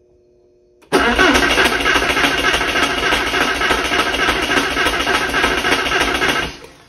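Porsche 968's 3.0-litre inline-four being cranked over on the starter. It starts about a second in, runs steadily for about five and a half seconds without catching, and stops. It does not fire because the fuel rail is dry, though spark and injector pulses are present.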